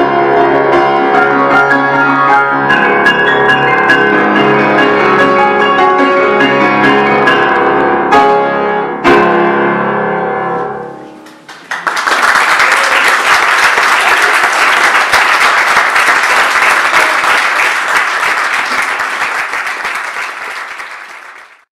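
Grand piano playing a classical solo piece, closing with heavy chords about eight and nine seconds in that ring away. After a brief gap, an audience applauds steadily, fading out near the end.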